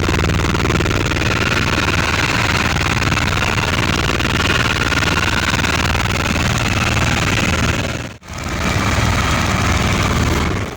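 Helicopter running: a steady, loud engine and rotor noise with a low hum beneath, broken by a brief cut-out about eight seconds in.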